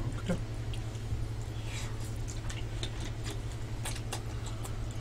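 Close-miked eating: chewing of black-bean noodles and a short slurp, with light clicks of chopsticks and spoons against bowls, over a steady low electrical hum.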